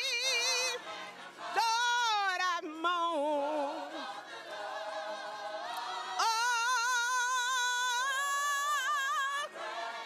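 Gospel choir singing a slow song, with a lead voice holding long notes that waver in pitch; the longest held note begins about six seconds in and lasts about three seconds.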